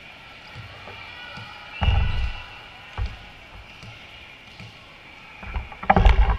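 Volleyball being hit and thudding during a rally: a heavy thud about two seconds in, a sharp single hit a second later, and a quick cluster of loud hits near the end.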